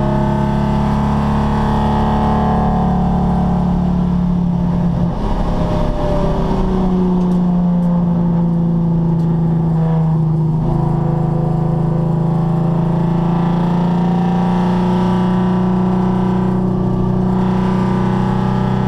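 Nissan 350Z's 3.5-litre V6 running on track at a fairly steady pitch. The note turns ragged and shifts around 5 seconds in and again near 10 seconds, which fits the engine misfiring.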